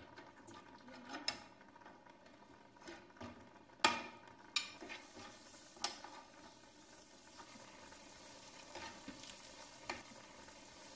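Metal spoon stirring and scraping food frying in a frying pan, with a light sizzle and a few sharp clinks of metal on the pan; the loudest clink comes about four seconds in.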